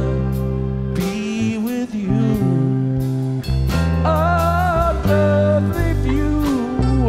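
Rock song with a steady drum beat, bass and guitar, and a wavering sung melody.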